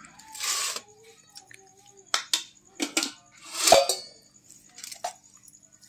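Stainless steel plates, bowl and serving spoon clinking and scraping as tomato chutney is served and rice is eaten. There are a few sharp knocks, the loudest about three and a half seconds in, ringing briefly.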